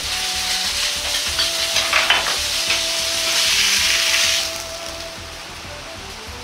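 Pork loin slices sizzling in oil in a hot Chinese wok while they are scooped out with a ladle and strainer, with a few metal clicks of the utensils about two seconds in. The sizzle drops away about four and a half seconds in as the meat leaves the wok, leaving soft background music with held notes.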